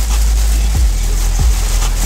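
Bass-heavy music with a deep kick-drum thump about every two-thirds of a second, heard inside a car over the hiss of heavy rain on the car.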